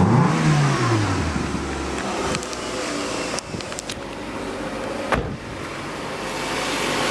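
2005 Nissan Altima engine, breathing through an aftermarket open air intake, dropping from a rev back down to idle in the first second or so, then idling steadily.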